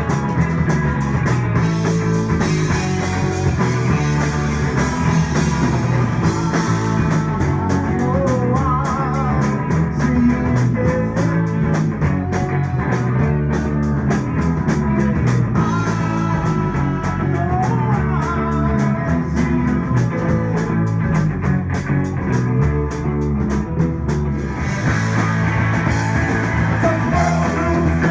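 Live rock band playing: electric guitars over bass guitar and a drum kit, with a steady beat and the cymbals getting brighter near the end.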